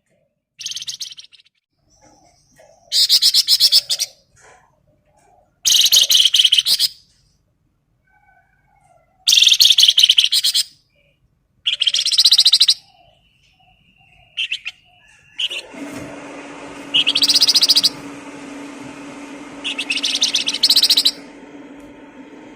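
A songbird singing loud, rapid chattering phrases about a second long, one every two to three seconds. About three quarters of the way through, a steady low hum sets in under the song.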